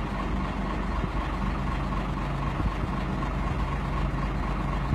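Truck-mounted crane's engine idling steadily, a low, even hum.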